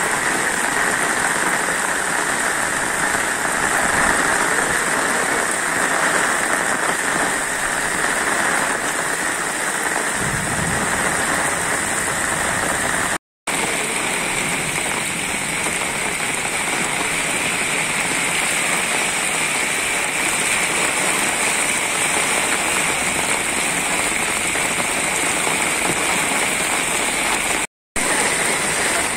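Heavy rain pouring steadily onto a flooded street, an even hiss of rain splashing on standing water and pavement. It cuts out for a split second twice, near the middle and near the end.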